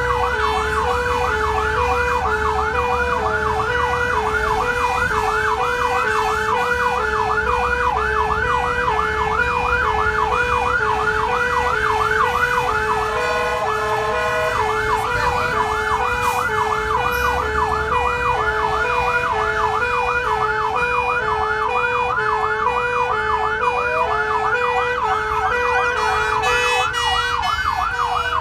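Fire engine sirens heard from inside the cab: a fast yelp sweeping up and down several times a second over an alternating two-tone hi-lo siren, with the diesel engine rumbling underneath. The yelp breaks off briefly about halfway through, then resumes.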